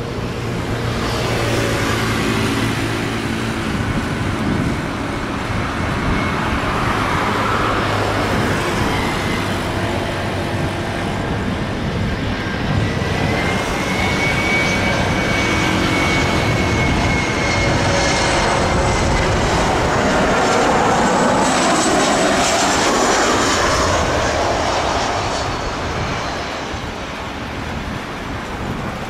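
Rimbun Air Boeing 737 jet airliner on approach to land, its engines giving a steady roar with a high whine. The sound swells to its loudest past the middle as the jet comes by, the whine falling in pitch, then eases off near the end as it reaches the runway.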